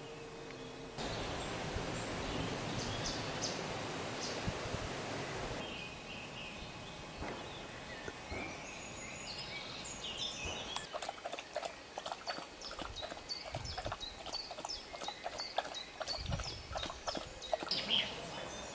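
Outdoor ambience: a few seconds of even rushing noise, then, from about ten seconds in, a busy run of quick clicks and short high chirps.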